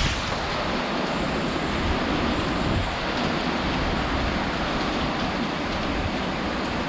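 Torrential rain and strong gusting wind in a severe thunderstorm: a steady, dense rushing noise with an uneven low rumble.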